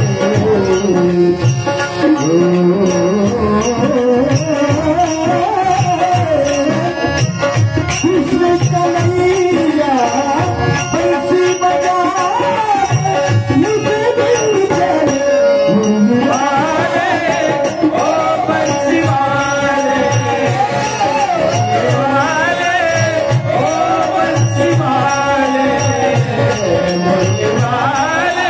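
Devotional folk music: a gliding, ornamented melodic line, most likely a voice, over drum strokes and an even, fast beat of small hand cymbals.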